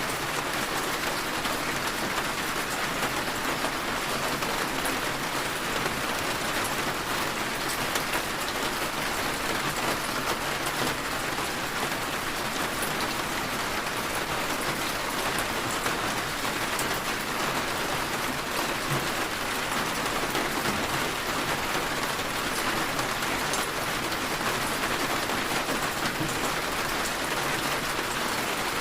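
Steady rainfall with fine drops pattering on a surface, as heard from indoors against a window, even and unchanging throughout.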